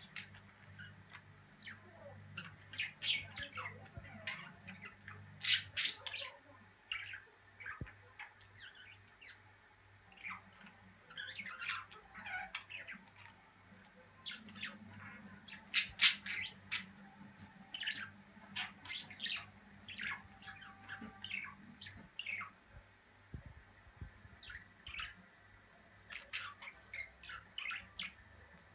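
Budgerigars chattering in many short, quick chirps and clicks, with a few louder squawks, as the male courts the female.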